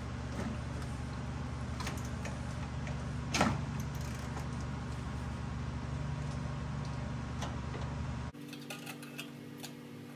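Hand ratchet clicking in scattered strokes as engine mount bolts are given a final tightening, over a steady low hum. The loudest click comes about three and a half seconds in, and the hum cuts off abruptly near the end.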